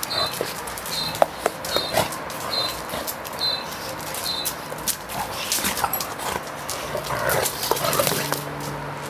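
Two dogs play-fighting: short dog vocalisations and scuffling, with claws clicking and scraping on concrete, busiest in the second half. A high chirp repeats about six times, evenly spaced, in the first half.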